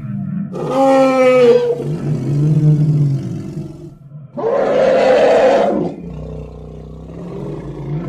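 Triceratops roar sound effect. A high, pitched bellow starts about half a second in, followed by low growls, then a louder, harsher roar around the middle, and a low rumble near the end.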